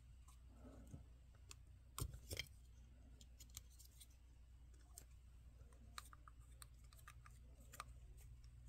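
Near silence with faint, scattered clicks and taps of small plastic action-figure parts being handled, with two sharper clicks about two seconds in.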